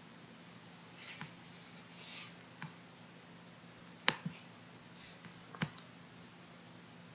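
Computer mouse clicking a few times at irregular intervals, the loudest click about four seconds in, with a brief rustle about two seconds in, over a low steady hum.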